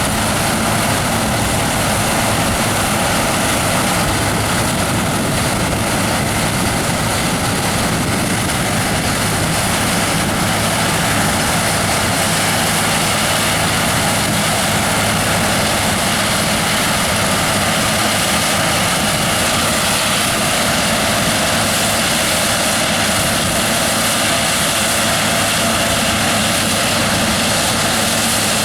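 John Deere S680 combine harvester working a crop, a steady machine drone of engine and harvesting gear that holds an even level throughout.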